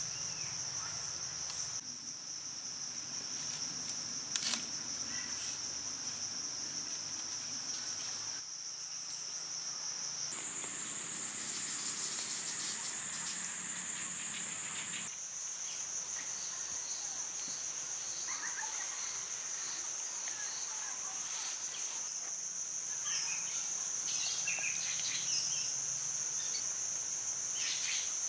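Steady high-pitched insect drone, shifting abruptly higher for a few seconds in the middle and then back down. Occasional faint clicks and short chirps.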